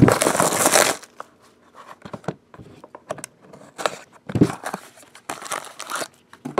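Packaging torn open and crinkled as a trading-card box is opened: a loud rip in the first second, then scattered crinkles, rustles and light taps.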